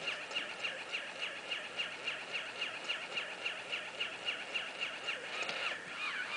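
Battery-operated walking plush pig toy running, giving a regular run of short electronic chirps about three a second. A warbling, wavering tone comes in near the end.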